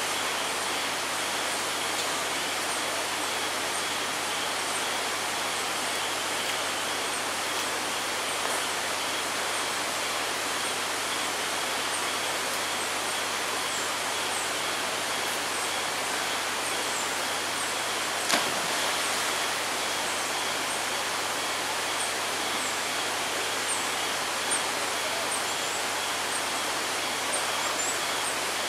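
A steady, even rushing hiss of outdoor ambience, with faint high chirps scattered throughout and a single sharp click about two-thirds of the way through.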